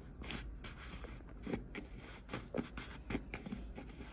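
Faint, irregular soft ticks and scrapes as pork is seasoned by hand in a plastic bowl, over a low steady rumble.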